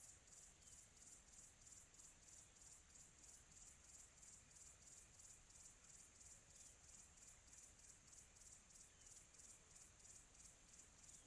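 Crickets chirping in a steady, even rhythm of high-pitched pulses, about three or four a second, in a faint, quiet tropical afternoon ambience.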